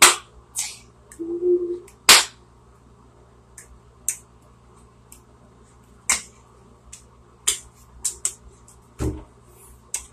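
Irregular sharp smacks and claps from a dancing child's hands, a dozen or so at uneven intervals, with one heavier low thump about nine seconds in. No music is heard.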